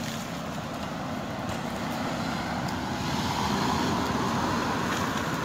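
Road traffic going by, with a vehicle passing and growing louder about three seconds in.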